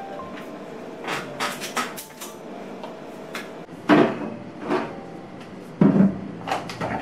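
Household tidying: light clicks and knocks of things being handled and set down, with two louder thumps, typical of a cupboard door or containers, about four and six seconds in.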